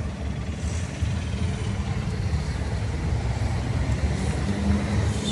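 Steady low rumble of a diesel truck engine idling.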